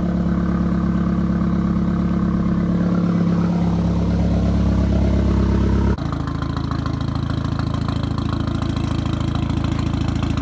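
2004 Volkswagen Jetta engine idling steadily just after a cylinder head replacement, running well enough to be called good to go with no check-engine light. The sound changes abruptly about six seconds in, slightly quieter.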